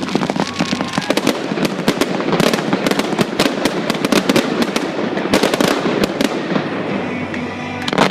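Daytime fireworks going off in a dense, continuous crackle of rapid pops and bangs, with a heavier burst near the end.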